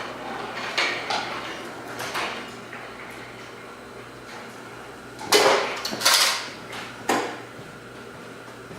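Metal hand tools and sheet-metal parts being handled: a few light clicks, then three louder clanks about a second apart near the middle, over a steady low hum.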